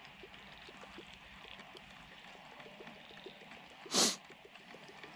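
A single sharp splash about four seconds in, a Murray cod striking at the water's surface, over a faint run of small ticks.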